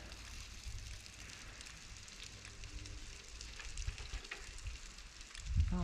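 Low wind rumble on a helmet-camera microphone, with faint scattered crackling from dirt and gravel under slowly rolling mountain-bike tyres.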